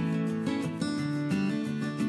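Background music: a strummed acoustic guitar playing a steady chord pattern.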